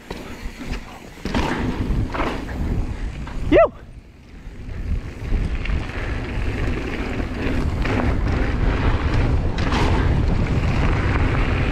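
Mountain bike rolling fast down a dirt trail: wind buffeting the action camera's microphone over the rumble and rattle of the tyres on dirt, growing louder and steadier in the second half as speed builds. A brief high squeal about three and a half seconds in.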